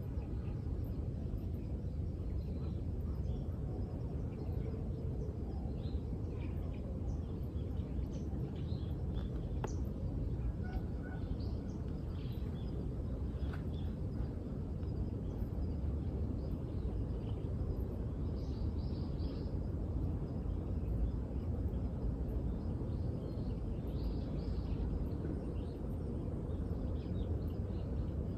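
Outdoor ambience of birds chirping intermittently, short scattered calls, over a steady low background noise.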